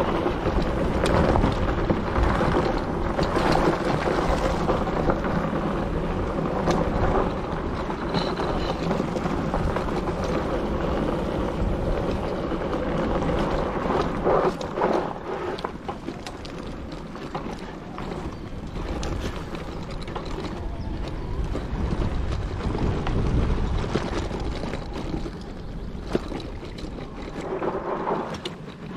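Wind rushing over the microphone and tyres rolling on a dirt trail while riding an electric bike, with scattered knocks and rattles from bumps. It gets quieter in the second half.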